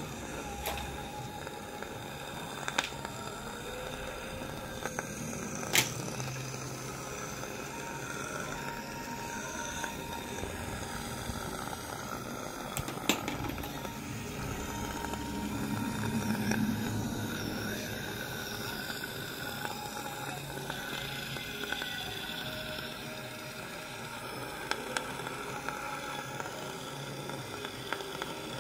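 Dental saliva-ejector suction hissing steadily in the mouth, with a few sharp clicks from metal dental instruments.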